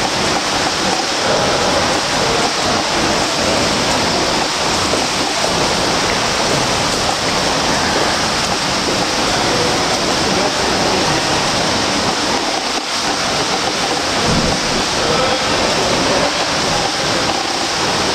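Steady rush and splash of pool water churned by a swimmer's front crawl arm strokes and kicks.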